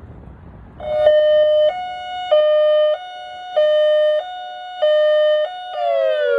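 Federal Signal Modulator electronic warning siren sounding a test alert. About a second in it starts a loud two-tone hi-lo warble, switching between a higher and a lower tone about every 0.6 s. Near the end it changes to a steadily falling tone.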